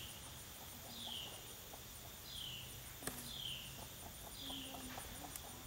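A bird repeating a short falling call about once a second, over a faint high insect trill. A single sharp click about three seconds in.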